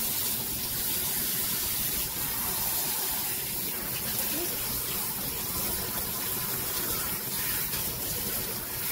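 Kitchen faucet's pull-out sprayer running steadily, its water spraying onto a soapy dog's coat and splashing into the sink basin as the shampoo is rinsed out.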